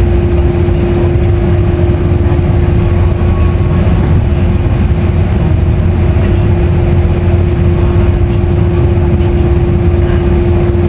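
Steady low rumble of a moving vehicle heard from inside, with a constant hum and faint scattered ticks.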